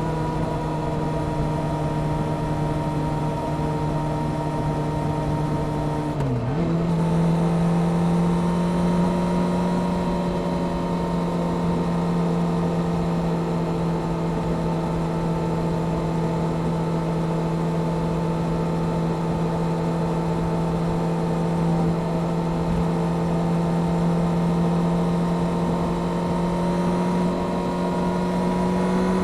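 Honda CBR600F Sport's inline-four engine, with a Delkevic aftermarket exhaust, pulling steadily under way. About six seconds in the revs dip sharply and settle again for a gear change, then it runs at an even pitch, rising a little near the end.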